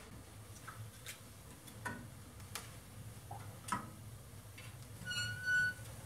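Wood fire crackling in an old wood stove: scattered sharp pops and ticks a second or so apart. About five seconds in, a short high metallic squeak as the stove door swings open.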